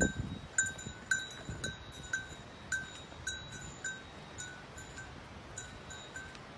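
A small metal bell ringing again and again at an uneven pace, about two strikes a second, growing sparser toward the end. A low thump comes at the very start.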